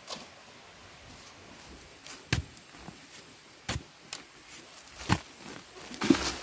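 A long digging pole stabbed into soil about six times, roughly once a second, each a sharp thud, with loose earth spraying near the end: digging a hole by hand.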